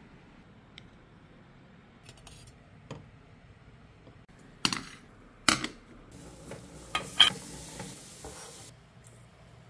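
Ceramic dishes and kitchenware knocking and clinking, the loudest knocks about five and five and a half seconds in as a bowl is set on a dinner plate. A steady hiss runs for about two and a half seconds in the second half, with more clinks over it.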